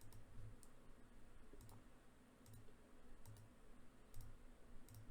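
A few faint computer mouse clicks, scattered irregularly over a quiet room.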